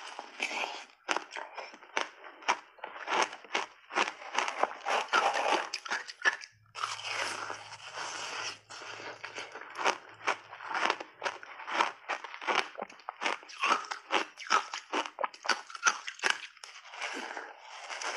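Big bites into a block of crunchy white ice and chewing of it, a dense run of crackling crunches with a short pause about six seconds in.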